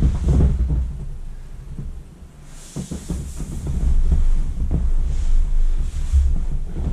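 Wind buffeting the microphone: a low, gusty rumble that eases about two seconds in and then builds again, with bursts of hiss.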